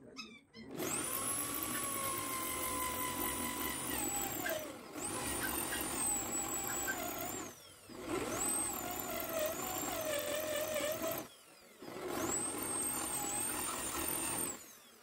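Bosch corded hand drill boring into a car's steel frame panel, in four runs of about three seconds each with short pauses between. Each run is a high motor whine that sags and drops in pitch as the bit bites. The drill is cutting out spot welds so the panel can be taken off.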